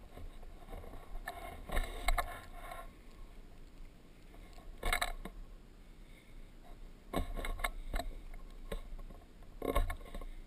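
Irregular scrapes and knocks close to the microphone as an action camera is carried and set down on rock, over a low wind rumble on the microphone.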